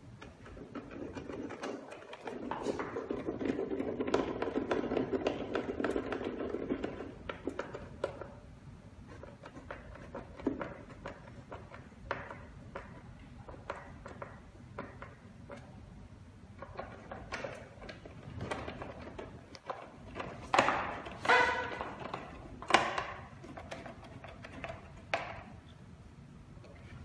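Hand screwdriver turning screws into the metal body of a fingerprint door lock: several seconds of dense scraping clicks, then scattered small ticks and clinks, with a cluster of sharper clicks about three quarters of the way through.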